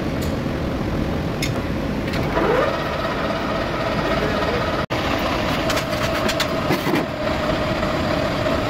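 Metal lathe running with its four-jaw chuck spinning a solid iron bar: a steady machine hum whose whine rises about two and a half seconds in, then holds steady. Light metallic clicks are heard here and there.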